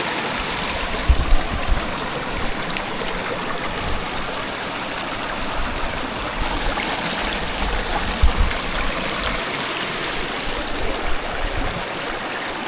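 Water running over rocks in a stream, a steady rushing hiss, with two brief low thumps.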